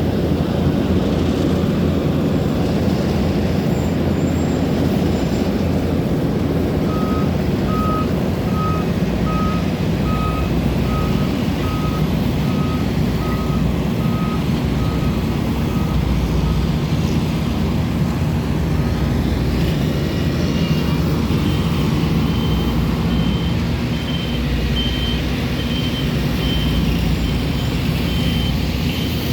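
Heavy road-construction machinery running steadily, with a reversing alarm beeping in a regular series through the middle. A second, higher-pitched reversing beeper sounds near the end.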